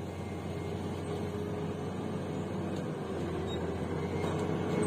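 Motor grader's diesel engine running steadily as the machine drives toward the listener, slowly growing a little louder.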